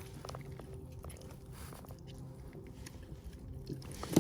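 Faint small clicks and rustles of handling, over a low steady hum.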